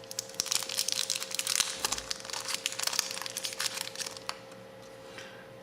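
Crinkling and crackling of plastic packaging handled by hand as a small replacement part is unwrapped, with many quick irregular crackles that die down near the end.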